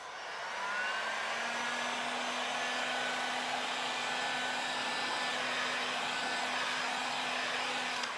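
Heat gun running, its fan blowing hot air over wet poured acrylic paint to pop the air bubbles and bring up cells. It comes up to speed in the first second, runs steadily with a faint whine, and is switched off at the end.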